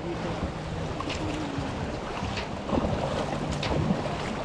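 Wind buffeting the microphone over the sound of the sea, with a steady low hum underneath and a few faint ticks.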